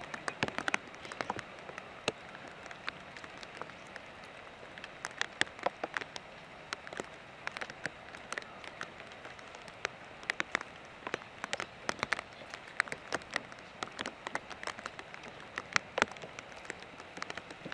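Rain falling: a steady hiss with irregular, sharp taps of drops landing close by, several a second.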